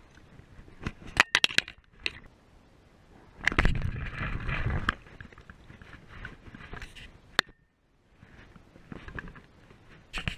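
Close handling noise of fishing tackle and clothing against a chest-mounted camera as a spinning rod is handled and cast. There is a quick run of sharp clicks about a second in, then a loud rustling scrape lasting about a second and a half, then scattered ticks.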